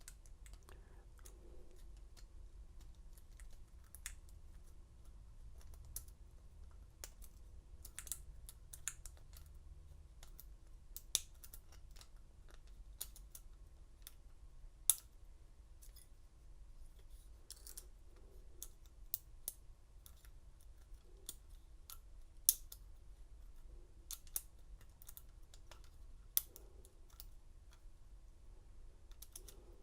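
Lock pick and tension wrench working inside a Master Lock 187 padlock's keyway: faint, irregular small metallic clicks and scrapes, with a handful of sharper ticks, over a faint steady hum.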